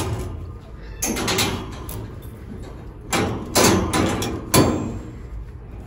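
Stainless-steel cat cage door being unlatched and opened by hand. Its metal latch and door bars clank and rattle in several sharp knocks.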